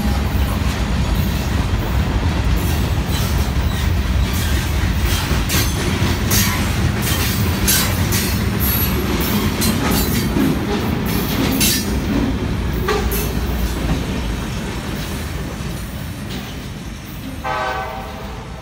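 Freight train cars, covered hoppers then centerbeam lumber cars, rolling past close by: a steady heavy rumble of steel wheels on rail with frequent sharp clicks and squeals. The sound fades in the last few seconds as the end of the train moves away, and a brief pitched tone sounds near the end.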